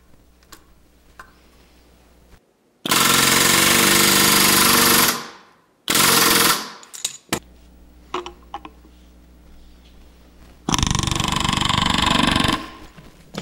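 Pneumatic rivet gun hammering round-head rivets into aluminium sheet against a bucking bar, in three bursts: one of about two seconds, a short one right after, and another of about two seconds near the end.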